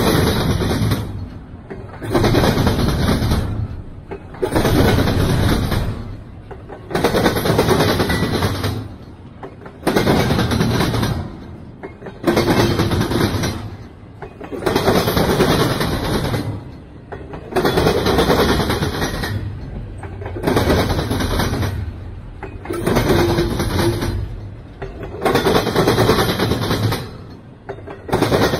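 Intermodal freight cars rolling past close by, steel wheels on rail. The noise swells and fades in a regular beat about every two and a half seconds as each car goes by.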